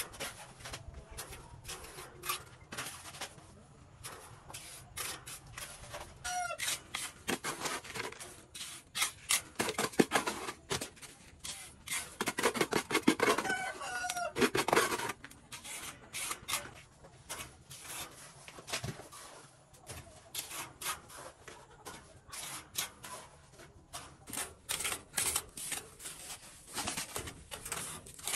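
Steel trowel scraping and slapping wet cement mortar onto the top of a concrete block wall, in many short strokes. A chicken calls briefly, and a rooster crows about halfway through.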